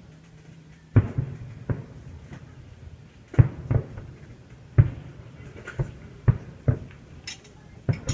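Aerial fireworks shells bursting in an irregular run of booms, about ten in eight seconds, some coming in quick pairs.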